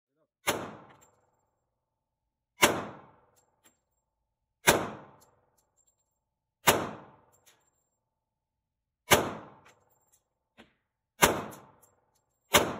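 Seven single pistol shots from a Glock, fired slowly about two seconds apart, each one sharp and echoing briefly off the walls of an indoor range lane. A few faint clicks fall between the shots.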